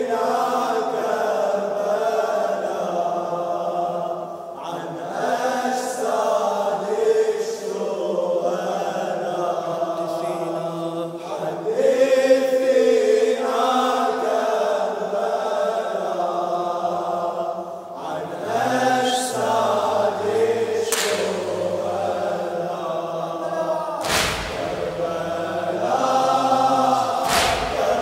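Layered male voices chanting the refrain of an Arabic Shia latmiya (mourning chant), long drawn-out lines with no lead reciter over them. A few short, sharp noise hits cut across the chant near the end.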